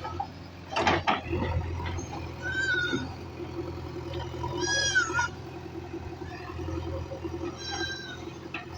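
A diesel machine engine running steadily, with an animal calling three times in short pitched cries. A loud sharp clatter comes about a second in.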